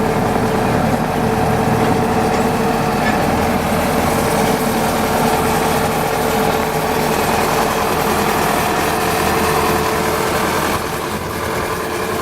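Bobcat T590 skid steer's diesel engine running steadily at idle, easing slightly quieter about eleven seconds in.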